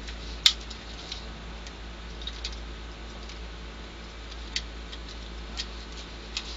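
Small scattered clicks and taps of a circuit board and capacitor leads being handled as new capacitors are pushed into the board and their leads bent over, with one sharp click about half a second in, over a steady low hum.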